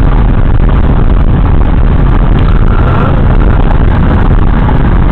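Loud, steady wind noise rushing in through an open car window at highway speed, mixed with road noise, heard inside the car.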